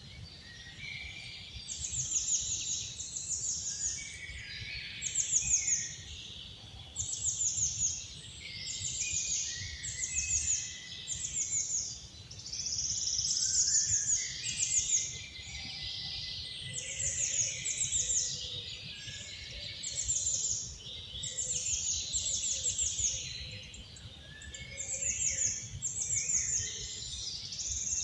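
Songbirds singing: short, high, rapid trilled phrases repeat about once a second, with softer, lower warbling among them, over a steady low rumble.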